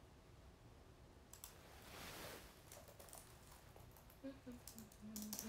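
Near silence with a few faint clicks and a soft breath, then brief quiet murmurs of a woman's voice near the end.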